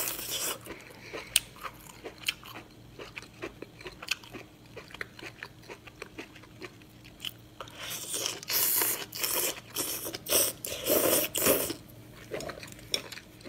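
Close-up eating sounds of a person chewing strips of dark braised food: wet mouth clicks and smacks throughout, with a run of louder bursts between about eight and twelve seconds in.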